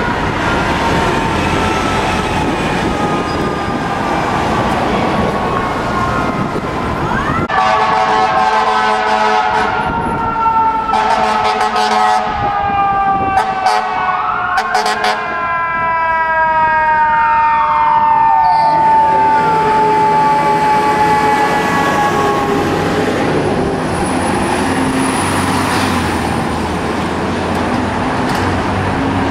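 Fire apparatus sirens over city traffic, several siren tones sliding up and down. Around the middle come steady horn blasts. Later one siren sweeps down in pitch over about two seconds as it winds down.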